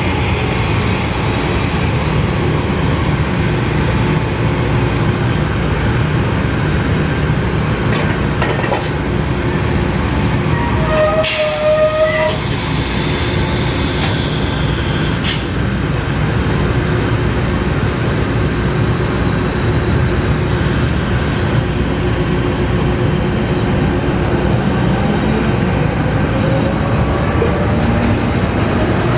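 Steady, loud din of the machinery of a 2000 HP SCR drilling rig, heavy in the low end. Partway through, a short high squeal and a few sharp clicks sound over it.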